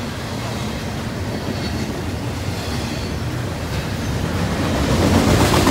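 Double-stack intermodal container well cars rolling past, their steel wheels rumbling and clacking over the rails; the rumble gets louder near the end.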